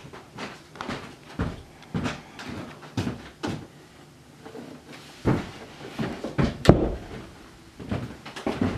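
Keys of a Yamaha synthesizer clacking and thumping against the keybed as they are struck, with no instrument sound coming out. Irregular knocks about twice a second, heaviest a little past the middle.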